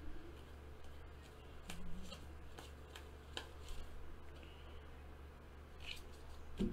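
Stack of baseball cards being flipped through by hand, each card sliding off the pile with a faint flick, the flicks coming unevenly about a second apart over a low steady hum.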